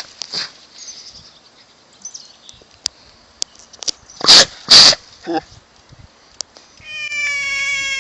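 A cat making two short, loud, breathy cries about half a second apart. Near the end a long, steady, slightly falling drawn-out tone begins.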